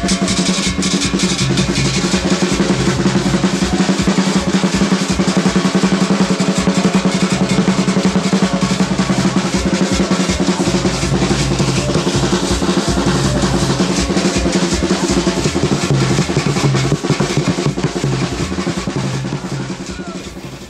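Live percussion band: a tall skin-headed hand drum, stick-played snare and bass drums, and a metal güira scraper rasping along, in a fast continuous rhythm. It fades out near the end.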